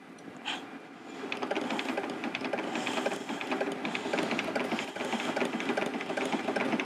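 Leica Jung 820 Histocut rotary microtome being cranked fast by hand, its mechanism giving a rapid, rhythmic clicking as it trims sections off a paraffin block to reach the tissue.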